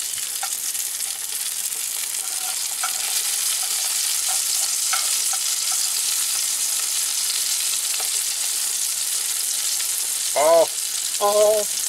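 Fluke fillets frying in butter in a cast-iron skillet, a steady sizzle with small crackles. Two short vocal sounds near the end.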